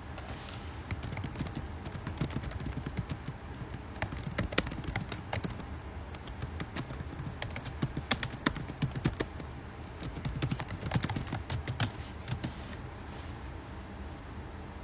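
Typing: a long run of quick, irregular taps and clicks, starting about a second in and stopping about two seconds before the end.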